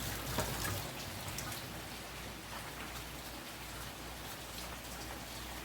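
Water pattering steadily in a continuous hiss, with scattered drops and a few light knocks.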